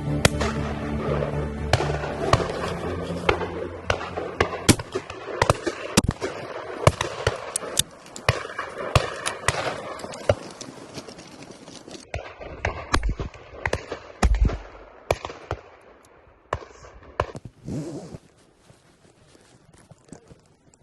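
Shotgun shots from the line of guns on a driven pheasant drive: many reports in quick succession, some close and sharp, some farther off, coming less often after about twelve seconds. Music fades out under the first shots.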